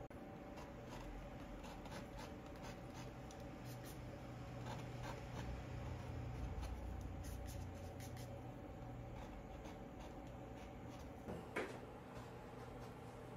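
Palette knife tapping and scraping paint onto a canvas: faint, scattered ticks and scratches over a low steady hum, with one brief louder sound near the end.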